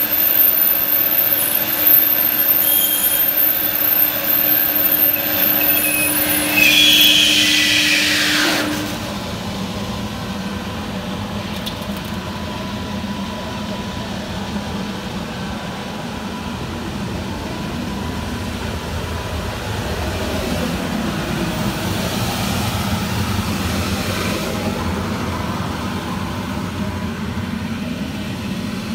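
Coil slitting line running as circular slitter knives cut steel coil into strips and the recoiler winds them up: a steady machine hum with a motor whine. About seven seconds in a whine rises, then the tone drops out and a lower, rougher steady running noise goes on.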